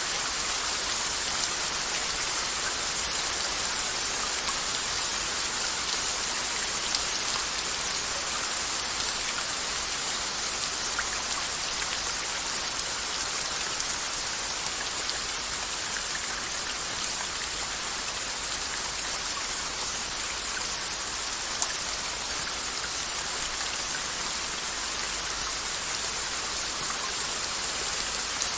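Steady rain falling: an even hiss with occasional sharper drop taps scattered through it.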